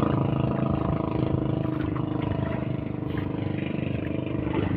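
An engine running steadily at an even speed, its pitch holding constant throughout.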